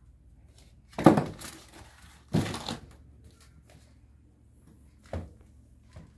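A flat-screen TV and its cardboard box and plastic wrapping being handled. There are knocks with rustling: a loud one about a second in, another about two and a half seconds in, and a smaller one near the end.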